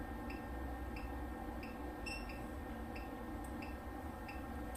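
PCT200i CT test set running its automatic test: short, faint high-pitched beeps, about three every two seconds, over a low steady electrical hum.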